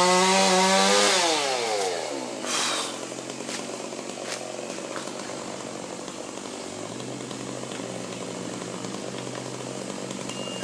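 Chainsaw running at full throttle, then let off, its revs falling away about a second and a half in. A few sharp knocks follow, and a steady low engine hum comes in near the end.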